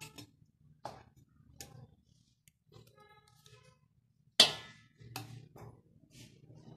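Scattered light kitchen knocks and clicks, the loudest a sharp clink a little over four seconds in.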